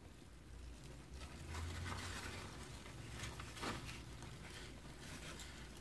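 Faint rustling and scraping of cardboard egg crates being handled and pulled out of a cloth shipping sack, with a few soft scratchy strokes.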